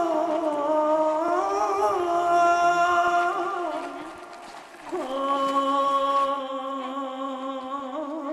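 Background music: a wordless vocal line of long held, wavering notes that slide in pitch. It fades briefly about four seconds in, then settles on a new long held note.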